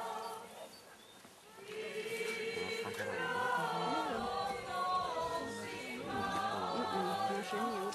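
A congregation singing a church song together, many voices at once. It fades out briefly just after the start and comes back in about two seconds in.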